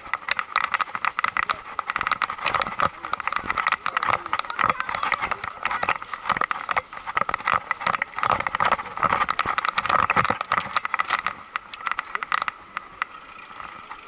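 Mountain bike's rear freehub ratchet ticking in a fast, dense run of clicks as the bike rolls without pedalling, easing off near the end.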